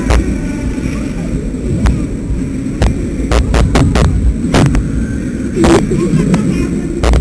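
Static on a helmet-camera microphone: a constant low rumble broken by about ten sharp crackling pops, with one longer crackle nearly six seconds in.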